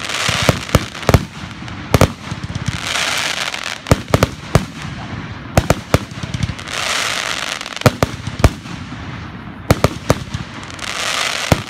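Aerial firework shells bursting overhead: a dozen or more sharp bangs, irregularly spaced, with several hissing stretches of about a second each between them.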